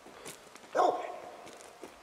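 Cur squirrel dog barking treed at the base of a tree: one loud bark a little under a second in, trailing off, the sign that a squirrel is up that tree.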